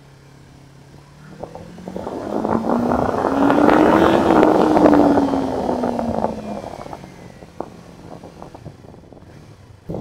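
Yamaha YZF-R3's parallel-twin engine rising in pitch as the bike accelerates, then falling away as the throttle eases. Wind rushing over the microphone swells with the speed and is loudest about halfway through.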